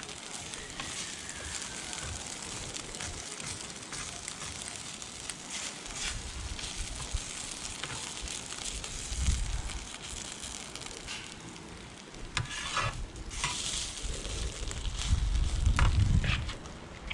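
Egg frying in hot oil in a pan: a steady sizzle with scattered crackles. A low rumble swells briefly about nine seconds in and more loudly near the end.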